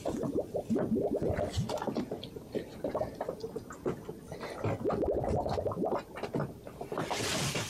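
Water gurgling and splashing in irregular spurts, with a brief rushing hiss near the end.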